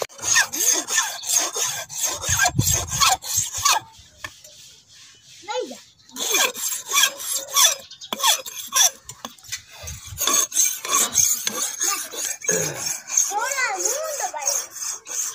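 Flat metal hand file scraping back and forth over a thin metal wire on a wooden block, shaping a part for a morchang (jaw harp). The strokes come in quick succession, pausing for about two seconds a few seconds in.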